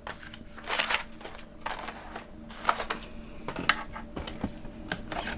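Hot Wheels die-cast cars in their cardboard-and-plastic blister packs being handled and pulled from a cardboard case: irregular rustling and crinkling with light clicks and taps.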